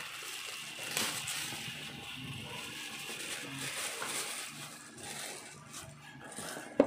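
Plastic packaging crinkling and rustling as a microphone pop filter is pulled out of its bag, with a sharp knock right at the end.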